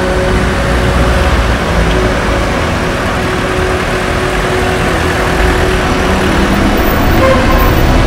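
City street traffic: cars and other road vehicles running past as a steady, loud noise.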